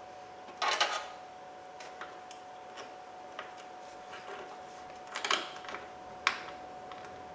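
Small clicks and rattles of metal bolts and fan-shroud parts being handled as the radiator cooling fan's top mounting bolts are started by hand. There are short clattering bursts about a second in and around five seconds, a single sharp click a second later, and faint ticks in between.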